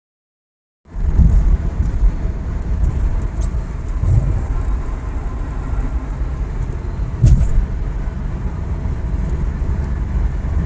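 2010 Subaru WRX driving on the road, a steady low rumble of road and drivetrain noise with a few short bumps, the loudest about seven seconds in. No transmission whine is heard, the sign that the replaced center differential has cured it. The sound starts abruptly about a second in.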